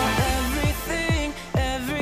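Upbeat pop worship song: singing over a steady electronic kick drum at about two beats a second.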